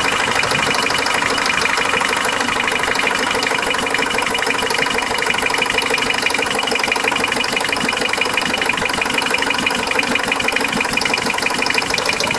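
Car engine running with a rapid, steady ticking, which the owner places somewhere around the oil pan and cannot explain.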